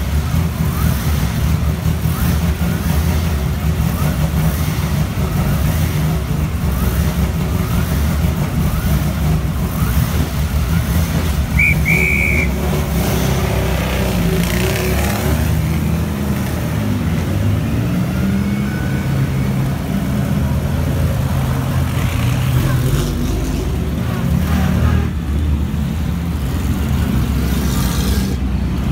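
Several vintage pre-war racing car engines running at low revs as the cars drive off one after another, a loud, continuous low engine sound that swells and shifts as each car passes. A brief high-pitched tone sounds about twelve seconds in.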